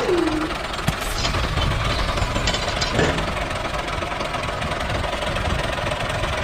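Small engine of a miniature DIY tractor running steadily, with a sharp click about a second in.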